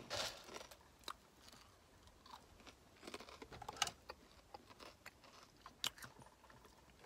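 A person chewing with her mouth closed: faint, irregular crunches and mouth clicks.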